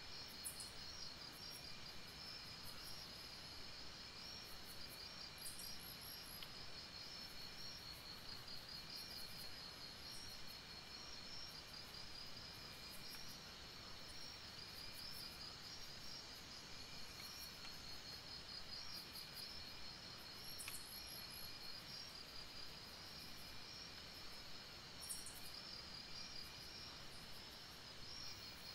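Crickets trilling continuously in a fast pulsing chirp over a faint, steady hiss of falling rain.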